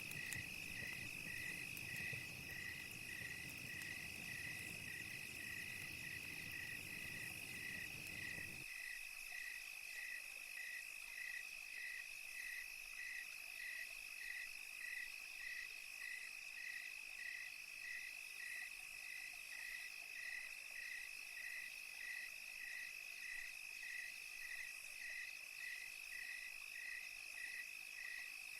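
Crickets at night: one steady high trill alongside a regular chirping of about one and a half chirps a second. A low rushing background layer under them cuts off suddenly about nine seconds in.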